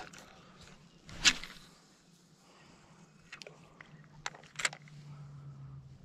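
A cast with a spinning rod: a short swish about a second in, then a few sharp clicks from the spinning reel as the line is worked. A low steady hum comes in near the end.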